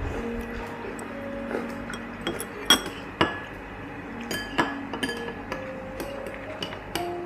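Metal eating utensils (spoons and chopsticks) clinking against a glass bowl and dishes during a meal: a dozen or so scattered, irregular clinks, the loudest a little under three seconds in, over soft background music.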